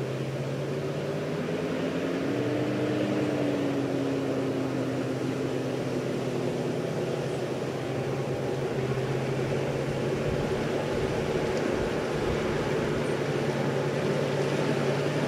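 M24 Chaffee light tank driving slowly, its twin V8 engines running with a steady low hum that grows a little louder near the end as it approaches.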